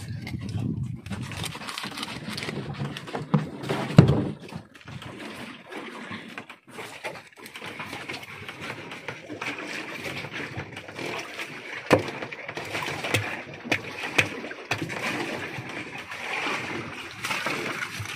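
A knife cutting into a whole tuna on a wooden deck, with several sharp knocks. The loudest knock comes about four seconds in and others fall near the end.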